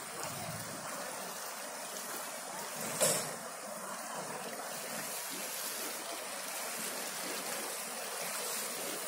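Heavy monsoon rain falling steadily, a constant hiss, with a brief louder burst about three seconds in.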